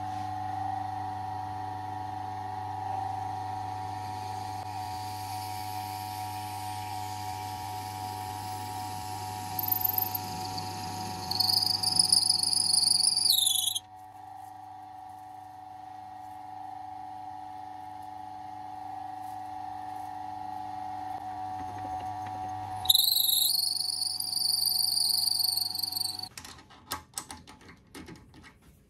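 A lathe runs with a steady hum while a twist drill in the tailstock chuck bores through a maple-and-epoxy pen blank. Twice, about midway and again near the end, the bit gives a loud high-pitched squeal for a few seconds as it cuts. Then the lathe stops, and a few sharp metal clicks follow as the chuck key goes into the chuck.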